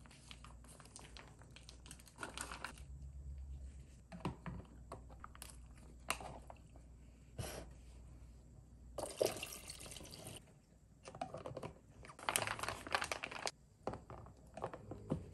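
Plastic food-storage containers and packaging being handled: a plastic bag crinkling, light taps and clicks as tubs are set down and lids pressed on. The sounds come as scattered soft clicks and short rustles, with the longest rustles about nine and twelve seconds in.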